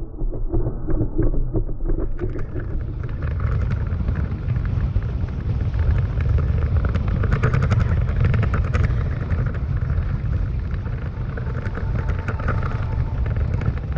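Toyota Tacoma truck driving along a rough dirt trail: a steady low rumble of engine and tyres, with many small knocks and rattles as it jolts over the ruts. The sound is duller for about the first two seconds, then fuller.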